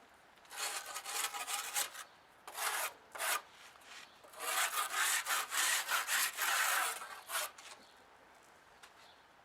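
Scraping hardened concrete off a wooden form board: rasping strokes in several bursts, the longest in the middle, stopping a couple of seconds before the end.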